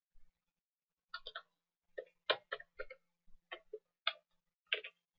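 Computer keyboard typing: about a dozen separate key clicks at an irregular pace.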